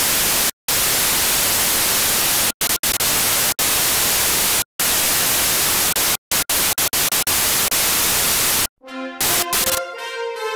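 Loud static hiss, cut off by several brief sudden dropouts to silence, giving way about nine seconds in to the channel's intro theme music with held pitched notes.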